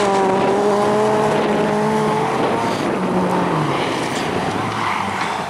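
Rallycross cars' engines (class 4, up to 2150 cc) running hard at high revs on a gravel track. One steady engine note holds, then drops away about two and a half seconds in, leaving a noisier mix of engine sound.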